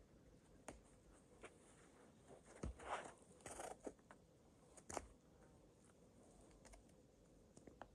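Faint scuffs, scrapes and taps of climbing shoes and hands on sandstone as a climber pulls over the top of a boulder, with a cluster of louder scrapes about three to four seconds in and a sharp knock about five seconds in.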